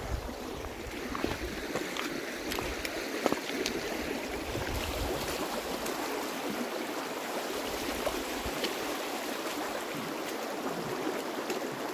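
Fast-flowing mountain river rushing steadily over its bed, the current strong after high water. A few short knocks sound in the first few seconds.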